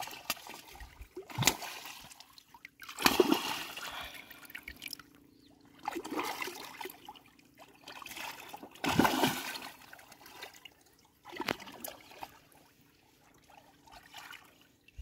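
Irregular water splashes and sloshing, about six bursts, as a hooked rohu thrashes at the surface and is brought in by hand by an angler wading waist-deep in the river.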